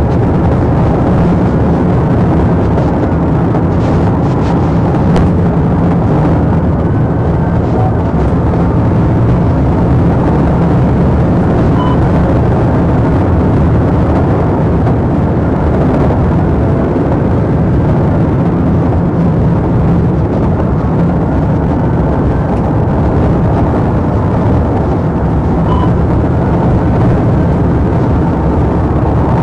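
Police car driving at high speed: loud, steady engine, tyre and wind noise inside the cruiser, with a faint siren wail rising and falling behind it.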